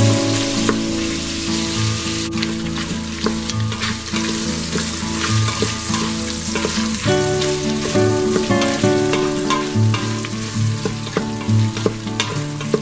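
Sliced sausage sizzling as it fries in hot oil in an Instant Pot's stainless steel inner pot on sauté, with a wooden spoon stirring and scraping against the pot.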